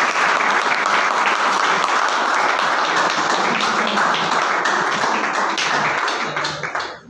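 Audience applauding: many hands clapping densely and steadily, cutting off suddenly near the end.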